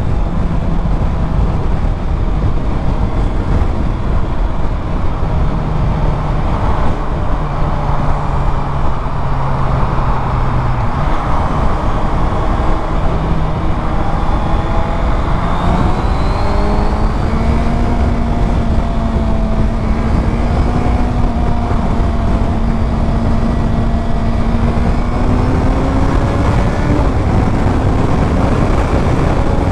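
Honda sport motorcycle engine running under way, heard from the rider's position with steady wind rush over the helmet microphone. The engine note holds steady, drops off about a third of the way in, then climbs over several seconds and settles at a higher pitch as the bike picks up speed.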